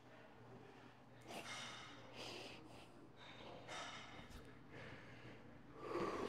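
A man breathing hard and audibly through nose and mouth from the strain of holding a flexed bodybuilding pose: a few short, hissing breaths, then a louder exhale near the end as he moves into the next pose.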